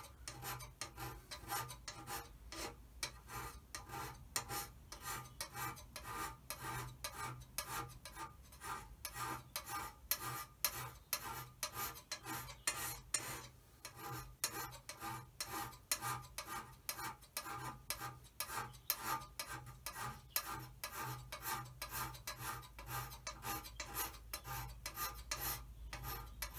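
Hand scraper with a 30 mm wide tip pushed in short, repeated strokes along the cast-iron bed ways of a Hollbrook lathe, an even scraping at about two or three strokes a second. Each stroke shaves the high spots off the worn ways to bring the bed back true.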